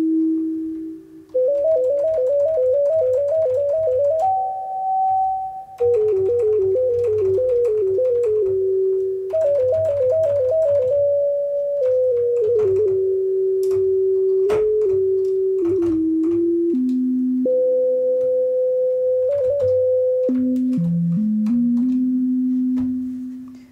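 Serum software synth playing the 'SY Maxima' legato lead preset: a smooth, near-pure tone, one note at a time, in quick trilling runs and held notes.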